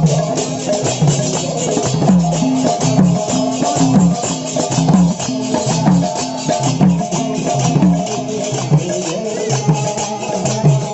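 Kirtan music: a drum beats a steady rhythm, its low strokes bending down in pitch, under a continuous jingling rattle.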